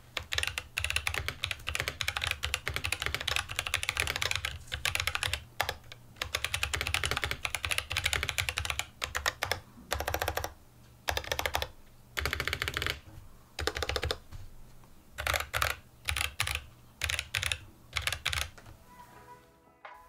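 Typing on a custom 65% mechanical keyboard with a white oak wood case: quick runs of keystrokes in bursts, broken by short pauses.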